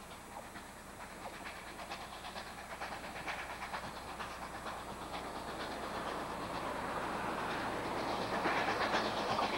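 Southern Pacific 786, a 2-8-2 Mikado steam locomotive, approaching under steam: a rhythmic run of exhaust beats that grows steadily louder as it nears.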